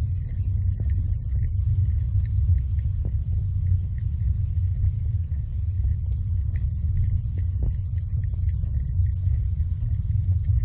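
Steady low rumble of wind buffeting the microphone of a camera moving along the street, its loudness wavering.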